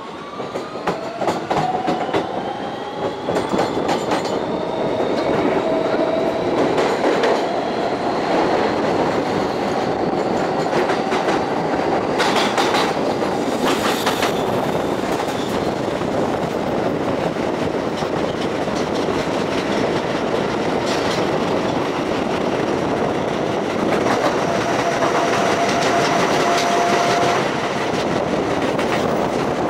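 New York City subway train pulling out of a station, heard from outside the car. A motor whine rises in pitch as it speeds up over the first few seconds, then it runs on steadily with wheel-on-rail noise and clicks over the rail joints.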